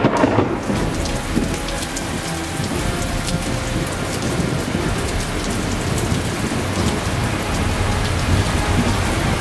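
Heavy rain falling steadily, with scattered close drops ticking. A peal of thunder fades out just after the start.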